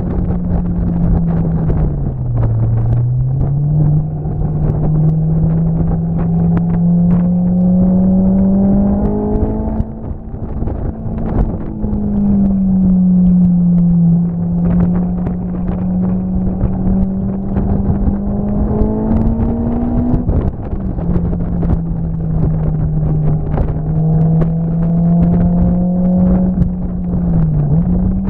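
A vehicle engine running without a break, its pitch climbing slowly and then dropping back several times, over a rough rumbling noise.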